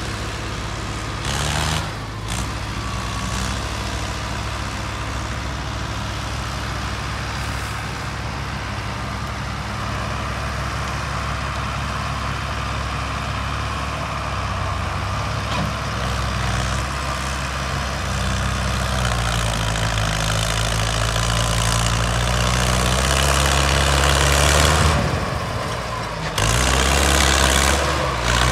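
Tractor diesel engine working under load as it pulls a fully loaded trolley, a steady low engine note that grows louder as the tractor draws closer. Near the end it is joined by a louder rushing noise.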